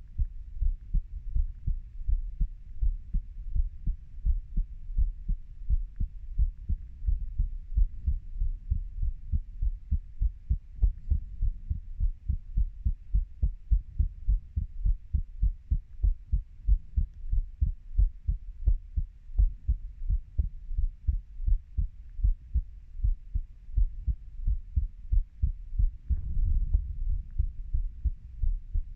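Human heartbeat, a steady run of low, dull lub-dub beats repeating evenly.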